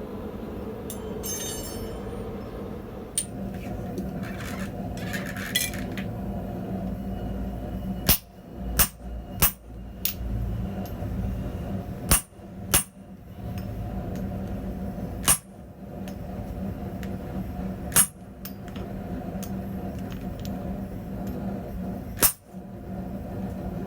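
Steel pieces and blacksmithing tools being handled, giving about eight sharp, scattered metal clinks and knocks with a brief ring, over a steady low hum.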